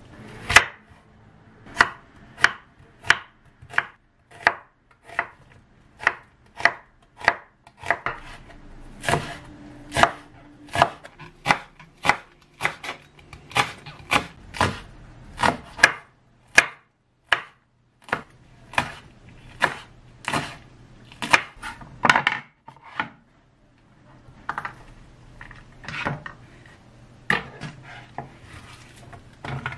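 Chef's knife cutting green onion, chili peppers and onion on a wooden cutting board: sharp knocks at about one and a half a second, a short break about two-thirds through, then fewer, scattered cuts near the end.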